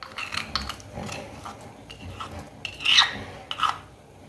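Crushed garlic being added to a pot of simmering ginger and black-pepper brew: a utensil clinking and scraping against the pot in a string of irregular short knocks, the loudest about three seconds in.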